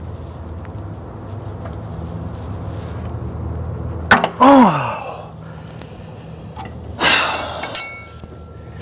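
Hand-tool work under a truck: a low steady hum ends at a sharp click about four seconds in, and a man's falling groan follows. Near the end a scrape and a metal wrench clinking down on concrete, ringing briefly.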